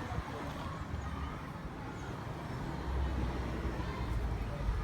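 Low, steady engine rumble from the 13 HP engine driving a two-stage cast iron air compressor, growing louder toward the end.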